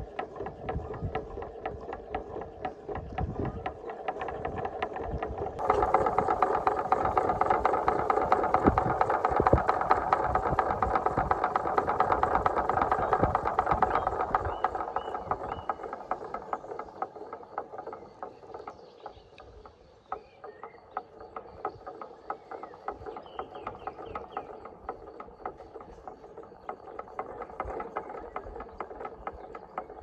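Homemade windmill scarecrow made from a 6-litre plastic bottle spinning on a steel wire in the wind, making a rapid rattling clatter over a buzzing hum. This is the noise meant to repel birds and moles. It is louder in the first half and weaker later, with wind rumbling on the microphone at times.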